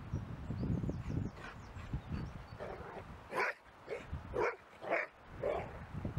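A dog barking, about six sharp barks in quick succession in the second half, over a low rumble of wind on the microphone.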